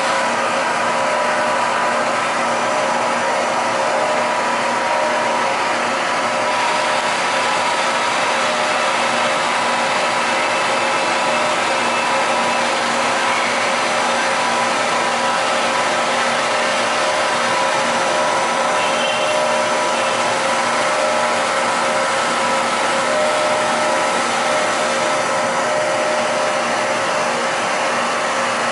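Giddings & Lewis RT 1250 CNC horizontal boring mill cutting with coolant spraying at the spindle: a steady machine whir with several held tones over an even hiss.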